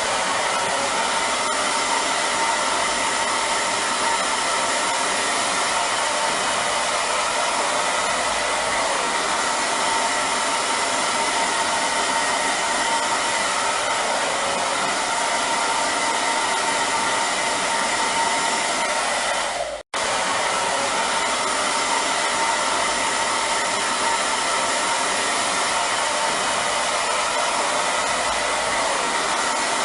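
Hair dryer running steadily: a rushing blast of air with a steady whine. About twenty seconds in, it cuts out for a split second and comes straight back.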